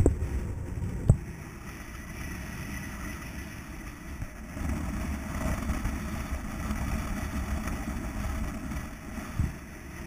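Wind buffeting the chest-mounted camera's microphone, a rough low rumble that swells and fades, with a sharp knock about a second in and a softer one near the end.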